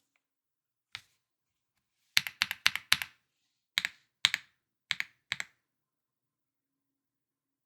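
Typing on a GMK67 mechanical keyboard with lubed and filmed KTT Kang White linear switches on a polycarbonate plate: one keystroke about a second in, a quick run of about five around two to three seconds in, then half a dozen spaced keystrokes.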